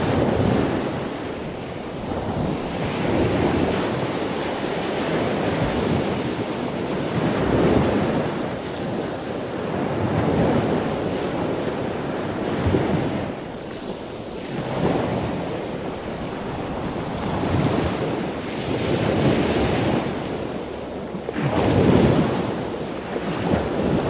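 Ocean surf washing in with wind blowing on the microphone, a swell rising and falling every two to three seconds.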